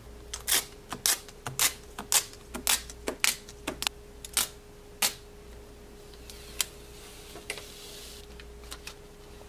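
Sharp clicks and taps of a screen protector and iPad being handled, about two a second for the first five seconds, then a few scattered ones, with a brief soft rustle about seven seconds in, over a faint steady hum.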